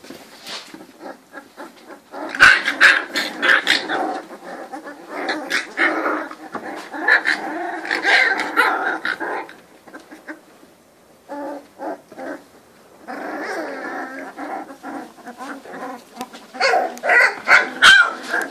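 Litter of three-week-old Cane Corso puppies whining and yelping in bursts, with a quieter stretch in the middle and loud again near the end.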